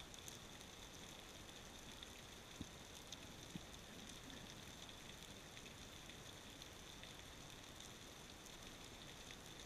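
Faint underwater ambience: a steady hiss with scattered small clicks and crackles, a few sharper ticks standing out about three seconds in.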